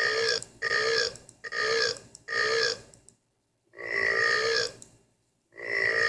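A string of loud burps, each with a slightly falling pitch: four short ones in quick succession, then after a short pause two longer, drawn-out ones.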